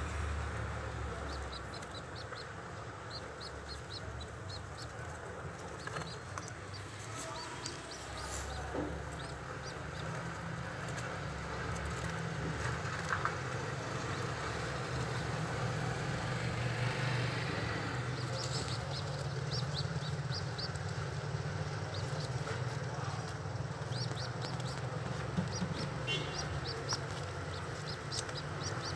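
Pigeon squabs being fed beak-to-beak by the adult, giving runs of quick, high squeaky peeps several times a second, in bursts a few seconds long. A steady low hum runs underneath.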